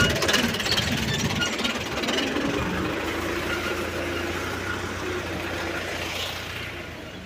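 Tractor engine running steadily, growing fainter toward the end.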